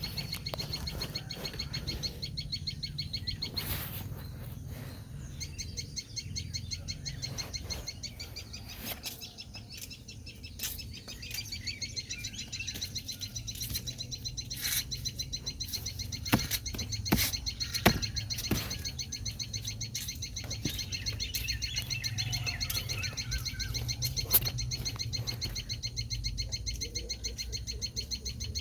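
Sunbird chicks chirping in a rapid, high-pitched, continuous stream over a steady low hum, with a few sharp clicks midway.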